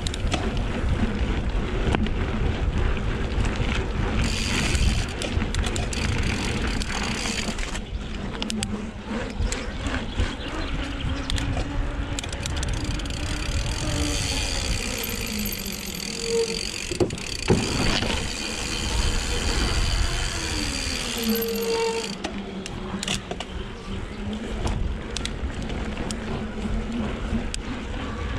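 Mountain bike ridden at speed, tyres rolling over dirt and then pavement, with frame and drivetrain rattle and wind rushing over the microphone.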